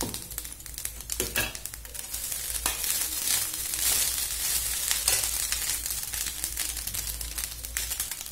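A steel spoon stirring cooked rice and ground peanut-and-sesame powder in a black kadai, scraping and clicking against the pan. It grows busier and louder in the middle.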